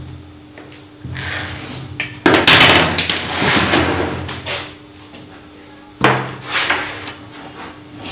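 A wooden bed-frame panel being handled on a wooden worktable: knocks and a longer scraping shuffle as it is moved, then one sharp knock about six seconds in as a wooden block is set against it. A faint steady hum runs underneath.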